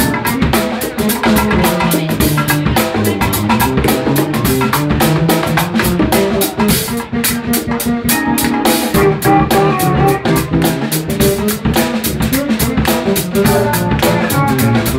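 Live funk-fusion band playing a busy groove: drum kit and percussion under bass lines and a guitar-like lead played on a six-string F-Bass BN6 through a Roland VB-99 modelling system.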